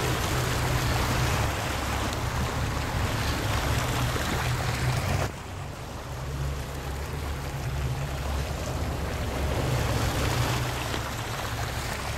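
Wind rumbling on the microphone over the wash of water along the shore. The rumble drops suddenly about five seconds in, then slowly builds again.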